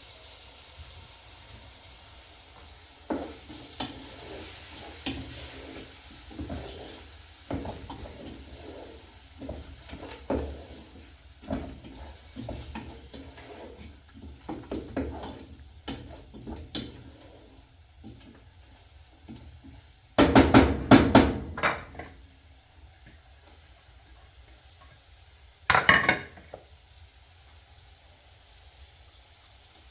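Irregular clatter and knocks of objects being handled, with a louder burst of rattling about twenty seconds in and a single sharp knock about six seconds later.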